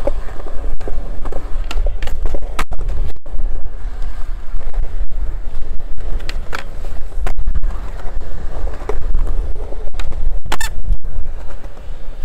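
Skateboard wheels rolling over smooth concrete, a steady low rumble broken by sharp clicks and clacks here and there, with a denser cluster of clacks about ten seconds in.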